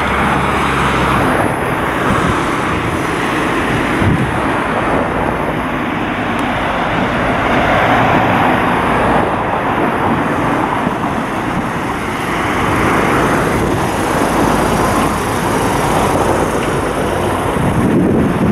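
Loud outdoor street noise: a steady rushing roar that swells and eases every few seconds.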